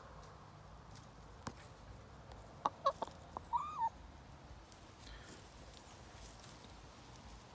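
A chicken clucking: a quick run of short clucks about three seconds in, ending in one longer call that bends up and back down.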